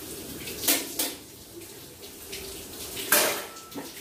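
Water running from a kitchen tap into a steel sink while dishes are washed. Steel utensils clatter as they are set into a wire dish rack, a couple of times about a second in and loudest about three seconds in.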